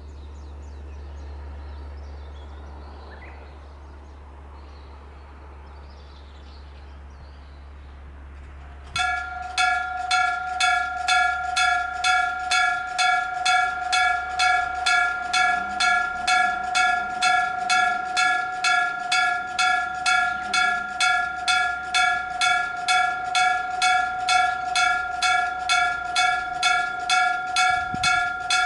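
Japanese railway level crossing warning bell starting suddenly about nine seconds in and ringing steadily at about two strikes a second, the signal that a train is approaching. Before it there is only a low rumble.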